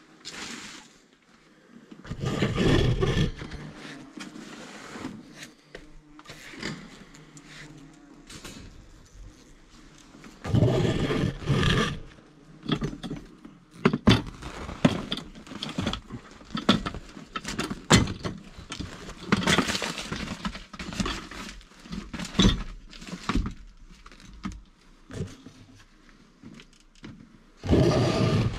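Irregular knocks, scrapes and rustling from equipment being handled and shifted against wooden attic beams, with the rustle of a protective suit as someone crawls and moves about in a cramped space.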